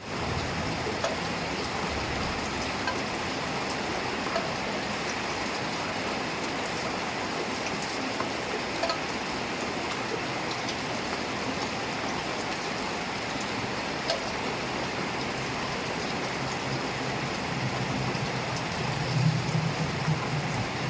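Heavy rain falling steadily, a dense even hiss with scattered sharper drop ticks. A low rumble comes up near the end.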